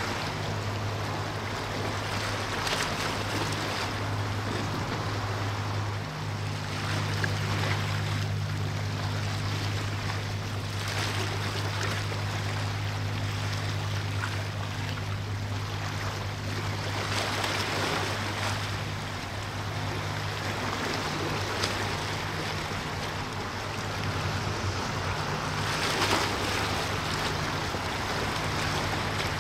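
A ship's engines humming low and steady across the water, over the wash of waves and wind.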